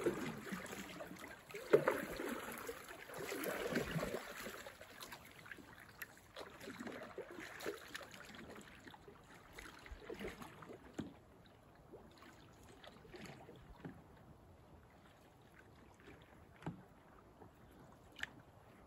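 Canoe paddling: paddle strokes swishing and splashing through the water, loudest over the first few seconds and quieter after, with a few short sharp knocks scattered through.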